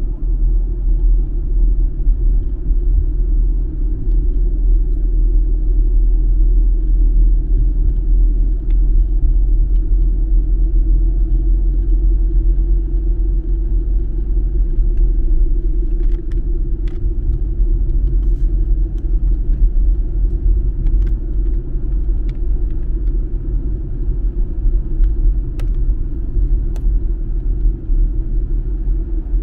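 Steady low rumble of a car driving at city speed, heard from inside the cabin: engine and tyre road noise. A few faint ticks come in the second half.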